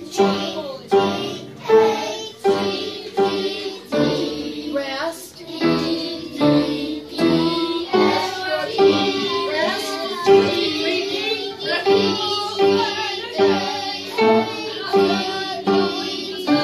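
A group of children singing with piano accompaniment, the piano striking chords on a steady beat.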